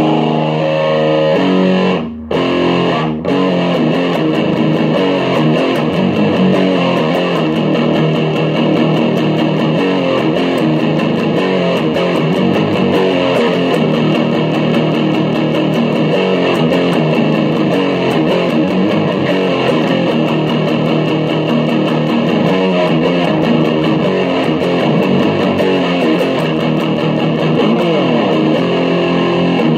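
Electric guitar played through a 1986 ProCo RAT distortion pedal: a loud, continuous run of distorted chords and riffs, with two short breaks about two and three seconds in. The pedal's tone is full and powerful.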